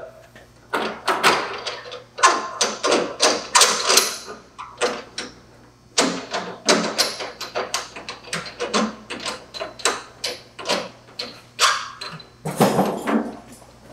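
Metal tool clicking and knocking against the threaded spring-preload collar of a Strange double-adjustable coilover shock as it is turned to tighten the spring. The clicks come in irregular clusters, several a second, with short pauses between.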